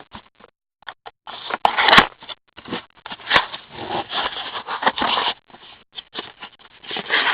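Plastic shrink-wrap crinkling and tearing as a sealed box of trading cards is unwrapped, with a few sharp clicks and scrapes of the cardboard.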